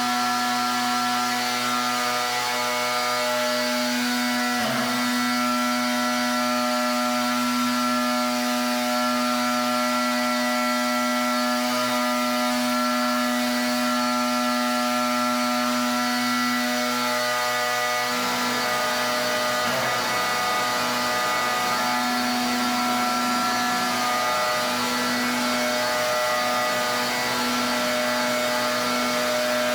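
Pressure washer running steadily, its motor or pump giving a constant hum while the high-pressure spray hisses against the surface. After about 18 seconds the hum turns unsteady and wavers.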